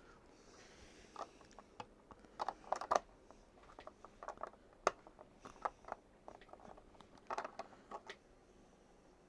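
Small plastic building bricks clicking and rattling as they are handled and pressed together: scattered sharp clicks, some in quick little clusters.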